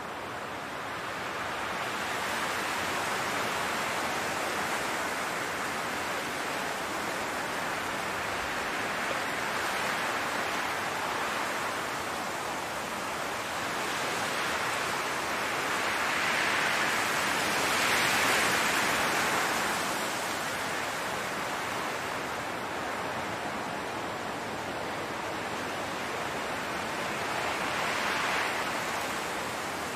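Wind blowing through a field of tall grass: a steady rushing hiss that swells and eases in slow gusts, strongest a little past the middle and again near the end.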